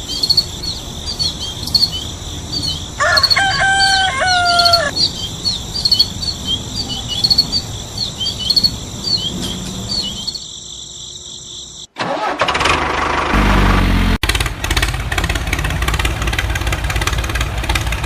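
Birds chirping over and over, with a longer drawn-out call about three seconds in. Then, after a sudden cut, an engine starts up and keeps running, louder than the birdsong.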